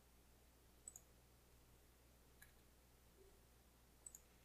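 Near silence with a low steady hum, broken by faint computer mouse clicks: a double click about a second in, a single click in the middle, and another double click near the end.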